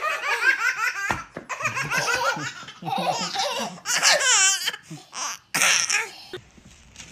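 A baby laughing in repeated bursts of giggles, stopping about a second before the end.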